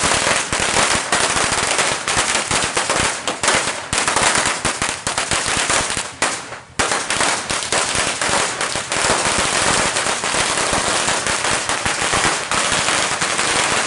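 A long string of firecrackers going off in a rapid, continuous crackle. There is a brief lull about six seconds in, then it carries on.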